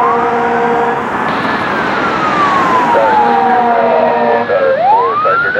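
Fire truck's Federal Signal Touchmaster electronic siren sounding a wail: the pitch climbs in the first second, falls slowly over about three seconds, then sweeps quickly back up near the end. The truck's air horn blasts over the first second and again in the middle.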